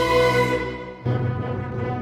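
Concert wind band with percussion playing a held chord that fades, then a sudden low accent about halfway through that dies away slowly.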